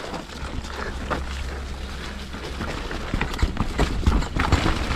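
Scott Gambler downhill mountain bike ridden fast down a wet, muddy, rocky trail: a steady low rumble with irregular rattling and knocking from the tyres and bike over the rough ground, a little busier about three seconds in.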